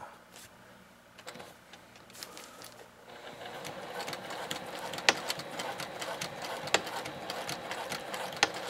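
Juki sewing machine stitching through grosgrain ribbon and silpoly tarp fabric, sewing the triple-stitched end of a box-stitched tie-out. A few light clicks at first, then from about three seconds in it runs steadily with rapid needle strokes and a few sharp clicks, slowing near the end.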